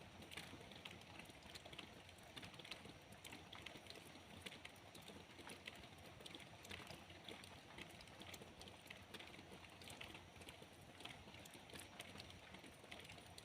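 Faint rain: drops pattering irregularly in quick, uneven ticks over a soft hiss.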